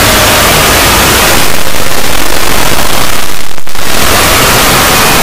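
Very loud, heavily distorted static-like noise covering all pitches, thinning briefly about three and a half seconds in.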